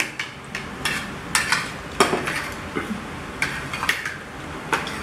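Metal forks and spoons clinking against ceramic plates and bowls as people eat, in irregular short clinks.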